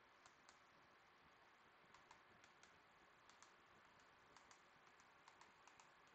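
Faint typing on a computer keyboard: irregular key clicks in small clusters as a sign-in name is typed in.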